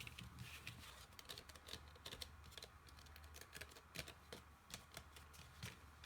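Soft, irregular small taps and rustles of folded paper being handled and pressed on a table.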